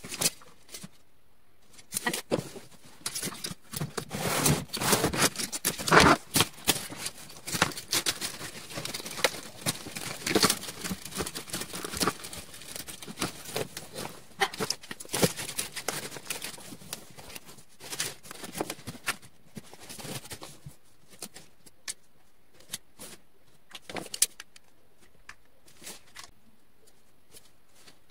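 Chicken wire rattling and clicking as it is handled against a clear plastic storage tote, a dense jangling clatter with sharp knocks. The handling sounds thin out to sparse ticks and taps over the last several seconds.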